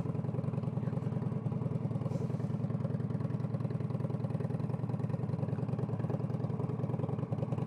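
V-twin cruiser motorcycle with a Two Brothers Racing 2-into-1 exhaust running steadily at an even beat.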